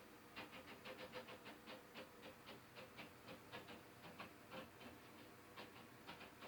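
Faint, irregular tapping coming through the ceiling from the condo above, several sharp taps a second in quick runs, with a short lull about five seconds in; the downstairs residents take it for construction work.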